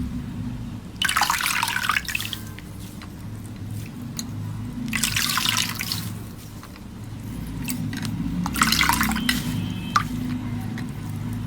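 Slime being squeezed and pressed by hand, giving wet, sticky crackling and popping in three bursts, with small clicks between, over a low steady hum.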